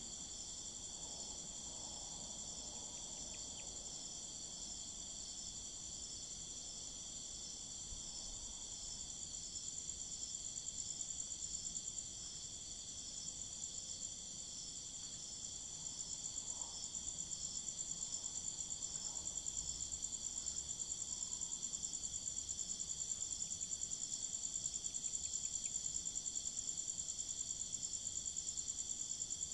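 A steady, high-pitched chorus of crickets trilling, growing louder about ten seconds in and again past the halfway point.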